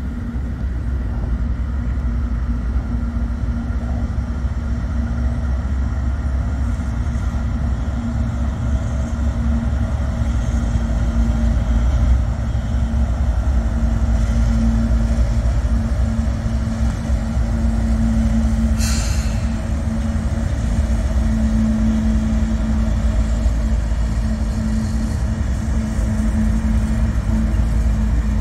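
Diesel locomotives of a CSX freight train running, a steady engine drone over a heavy low rumble. There is a brief high hiss about two-thirds of the way through.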